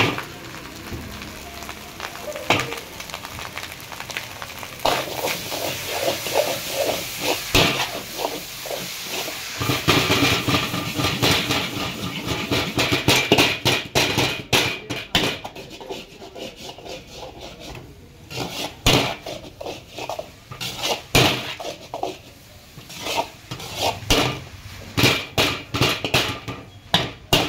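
Chicken fried rice stir-frying in a large black wok over a gas flame: sizzling, with a metal ladle scraping and clanking against the wok. From about halfway on, the sizzle drops back and the ladle strikes come as loud, sharp clanks in quick succession as the rice is tossed.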